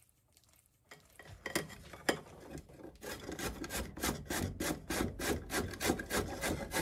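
Rhythmic rasping strokes from hand-worked food preparation, about two to three a second, beginning about a second in.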